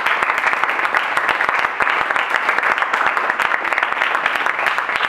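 Audience applauding: many people clapping in a dense, steady patter that holds at an even level.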